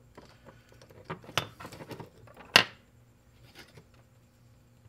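Small clicks and taps of hands handling a circuit board, a flex cable and a battery on a tabletop, with one sharper click about two and a half seconds in and a softer one about a second before.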